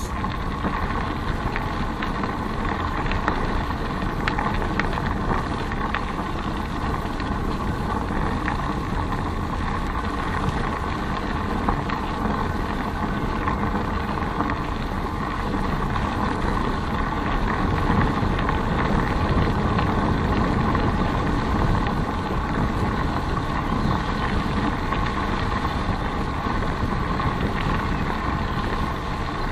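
Steady wind buffeting and road rumble while riding along a paved path, picked up by an action camera's microphone through an open housing, with a faint steady whine underneath.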